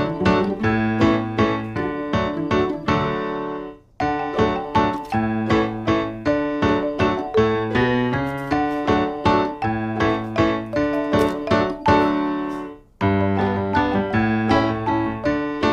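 Background piano music: a light tune of quickly struck notes that breaks off twice for a moment and starts again.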